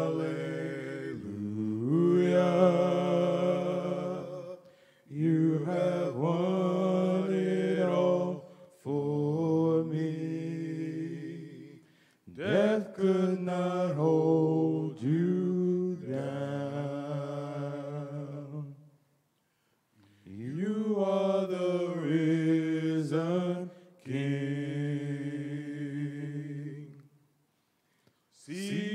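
Male voices singing a slow gospel song in harmony, with no instruments, drawing out long held notes. There are about six phrases with short breaks between them.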